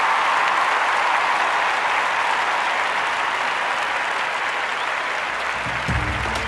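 Sustained applause from a crowd, slowly fading, with music with a bass line coming in near the end.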